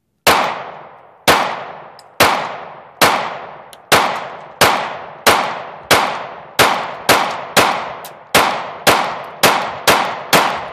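Sixteen 9mm pistol shots from a Gen 4 Glock 26, each ringing out briefly. They come about one a second at first and quicken to about two a second near the end, as a full ETS 17-round magazine is fired through.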